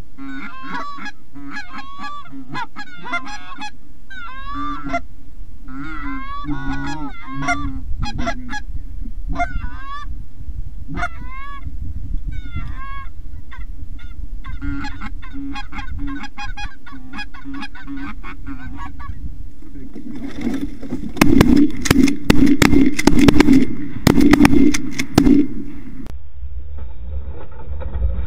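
Canada goose honking: repeated short honks and clucks. About two-thirds of the way through, the calling becomes much louder and harsher for a few seconds of rapid clucking, then eases off.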